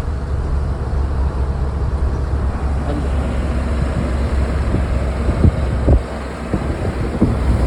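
Heavy wind rumble on the microphone while travelling by road, with vehicle and road noise underneath; the level dips briefly about six seconds in.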